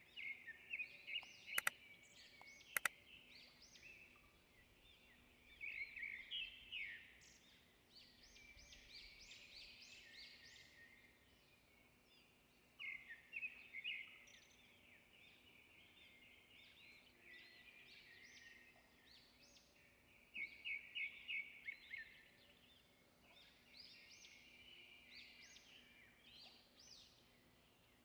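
Small birds singing in bursts of quick, high notes and trills every few seconds, with two sharp clicks near the start.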